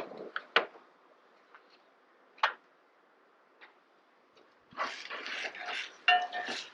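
A few sharp clicks and taps of camp cooking gear, then from about five seconds in an uneven scraping and rustling of food being worked in a pan.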